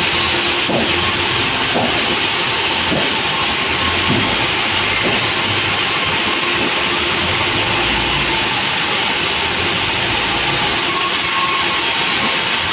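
Sawmill machinery running: a loud, steady rushing noise with hiss.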